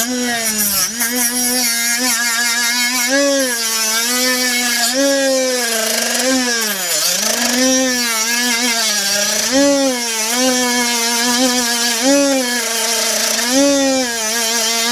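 Handheld power tool running steadily, its pitch rising and falling every second or two as it is worked against the part. It is trimming a part down so the power steering pump will fit.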